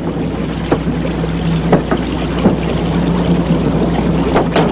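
Steady low motor drone with wind and water noise, as of a boat under way, with a few sharp knocks along the way.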